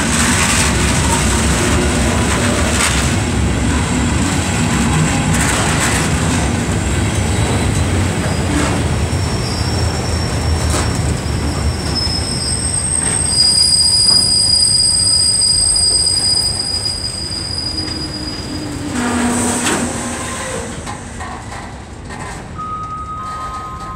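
Freight train wagons rolling past close by behind an E652 electric locomotive: a steady heavy rumble with knocks as the wheels cross rail joints, and a high wheel squeal from about nine seconds in that lasts several seconds. The noise fades over the last few seconds.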